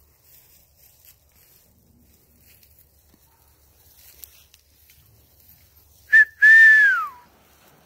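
A person whistling close by: a short note, then a longer note that holds and slides down in pitch, with some breath hiss.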